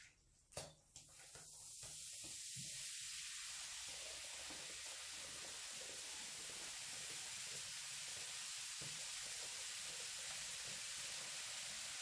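Baking soda fizzing as it reacts with vinegar and water in a stainless steel bowl, foam rising. There is a click about half a second in, then the fizz builds over a couple of seconds and holds steady.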